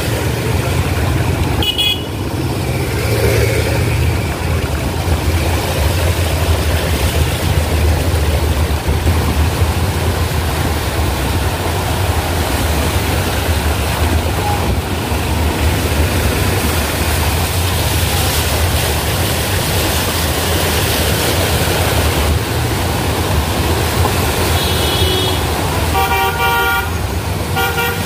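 Steady road and traffic noise with vehicle horns honking: a short toot about two seconds in, another near the end, then a series of quick horn beeps.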